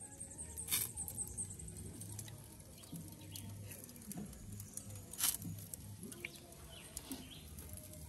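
Chicken on a steel-drum jerk pan grill over a fire, crackling with scattered small pops, with two sharper cracks: one about a second in and one about five seconds in. A few faint bird chirps.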